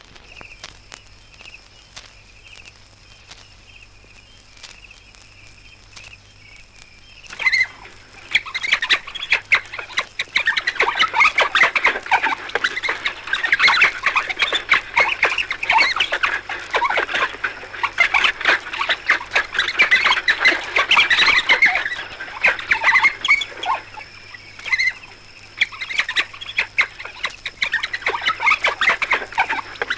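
Pack of African wild dogs twittering: a dense run of high, bird-like chirping calls that sets in suddenly about seven seconds in and keeps going. Before that there is only faint hiss and a low hum from the old record.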